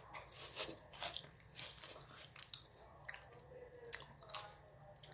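A person chewing a mouthful of burrito wrapped in a flour tortilla, heard as a faint run of irregular small clicks and wet mouth sounds.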